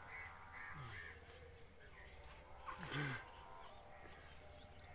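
Faint repeated bird calls, with a louder short sound about three seconds in.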